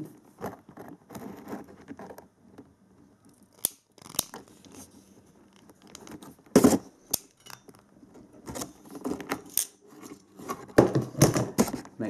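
Hand crimping tool working a blue insulated ring terminal onto a wire: scattered sharp clicks and rustling as the tool and wire are handled, with a loud click about six and a half seconds in and a run of clicks near the end as the crimp is squeezed.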